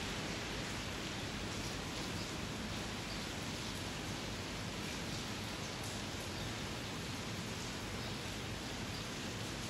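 Steady rain falling, an even hiss with no breaks and a few faint taps of drops.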